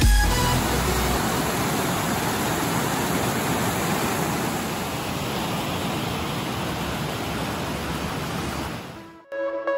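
Steady rush of a small mountain stream cascading over rocks, fading out near the end.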